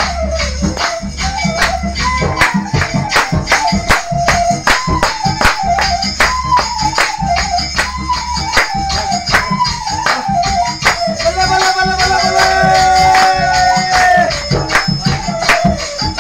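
A Sarazi folk dance song played loud over a portable party speaker: a quick, even beat of sharp percussion hits, about four a second, under a wavering melody. About three-quarters of the way through, the melody gives way to a few long held notes for several seconds.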